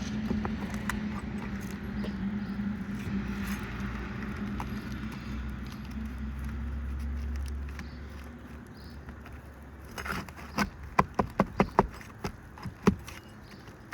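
Hand tools working asphalt shingles loose: light metallic clinks and scraping, then a quick run of sharp knocks about ten seconds in. A steady low hum runs under the first half and fades.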